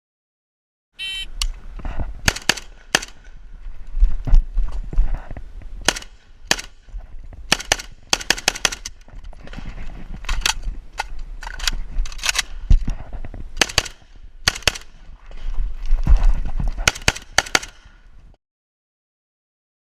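Old AK-pattern rifle firing semi-automatic at a rifle match stage: about thirty sharp shots in irregular strings, some in quick pairs, with short pauses between. The shooting starts just after a short high electronic beep about a second in, typical of a shot timer, and stops a second or so before the end.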